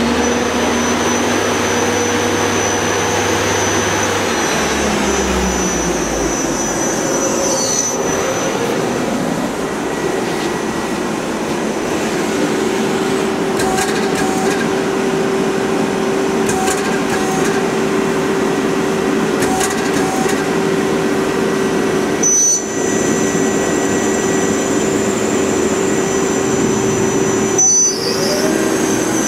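Femco HL25N CNC turning center running a spindle program: a steady electric whine from the spindle drive, with several held tones. The pitch falls about five seconds in, then steps up briefly later and rises sharply near the end as the spindle changes speed.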